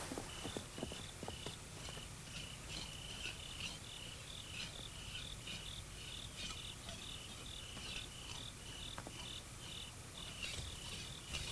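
Crickets chirping at night: a faint, even run of short high chirps alternating between two pitches.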